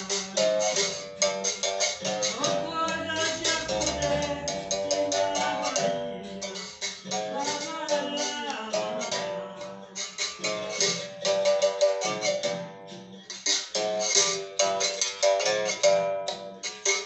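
Capoeira berimbau music: a stick strikes the steel string in a quick, steady rhythm, with the caxixi rattle shaken along with each stroke.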